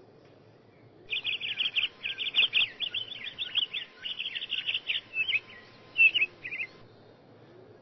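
A bird singing a fast, chattering run of high chirps and short trills, starting about a second in and lasting about five and a half seconds.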